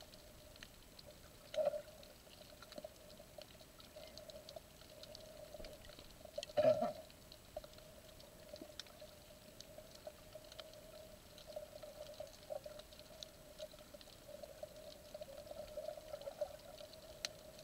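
Underwater sound from a submerged camera over a coral reef: a steady low hum with many faint scattered clicks, and two louder brief bursts, about two seconds and seven seconds in.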